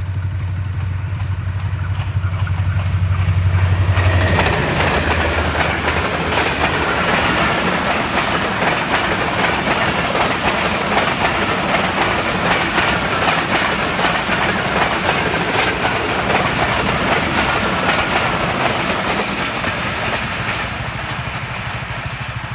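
A passenger train passing close by. A low steady diesel locomotive engine hum comes first, then from about four seconds the carriages roll past with rapid wheel clatter and a wavering high squeal of wheels on the rails, fading near the end.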